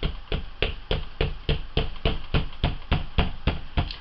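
Hand-held ink applicator stamp pouncing on a tile: quick, even taps, about three or four a second. It dabs alcohol ink onto the tile to blend the colours, pounced rather than rubbed.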